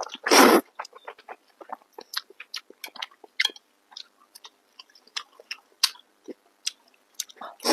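A man slurps in a mouthful of thick noodles, chews with many small wet clicks, then slurps noodles again near the end.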